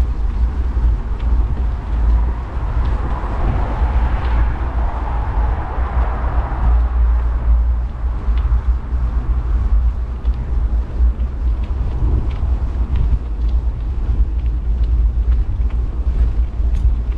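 Wind buffeting the microphone while riding a bicycle, a steady low rumble, with the rolling noise of the bike and small scattered ticks from the path. A hiss swells for a few seconds a few seconds in, then settles.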